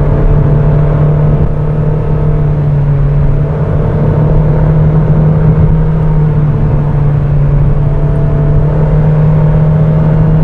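2008 Mazda MX-5 Miata's 2.0-litre four-cylinder engine pulling at steady revs in third gear, heard from inside the cabin: a steady drone at one pitch over road noise.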